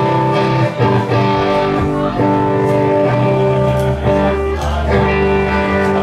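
Electric guitar and bass guitar played through amplifiers: held chords that change about every second, with the low bass notes growing stronger a little past halfway.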